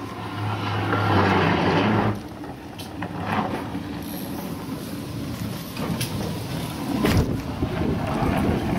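An iceboat's runners rumbling and hissing over the ice as it sails past, swelling and then cutting off after about two seconds; a few sharp knocks follow.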